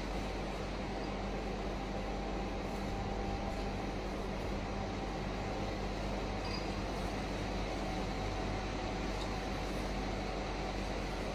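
Steady low hum with an even hiss of background room noise, unchanging throughout.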